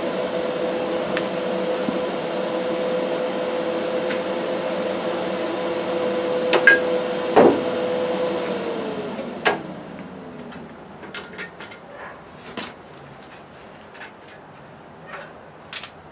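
A small electric motor runs with a steady whine, then is switched off about eight seconds in and winds down to a stop over about two seconds. A sharp clank comes just before it stops, then light clinks and taps follow.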